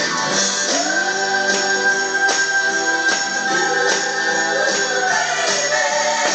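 Upbeat children's song music with a steady beat and jingling percussion, a long high note held through the middle.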